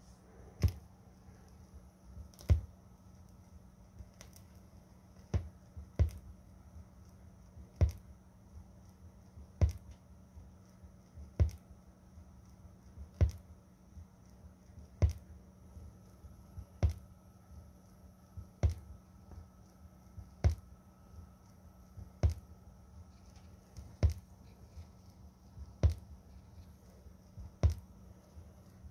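Warped vinyl record playing through a turntable's Audio-Technica cartridge, giving a thump about every 1.8 seconds, once per turn of a 33⅓ rpm record, over a faint steady hum; the thumps are the warp coming round under the stylus.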